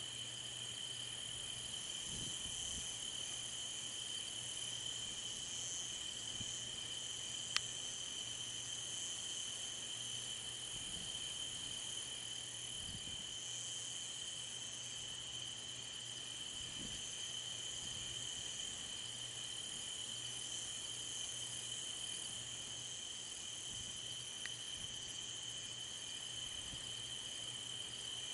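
Night chorus of crickets and other insects, chirping steadily in a high-pitched drone, with one sharp click about seven and a half seconds in.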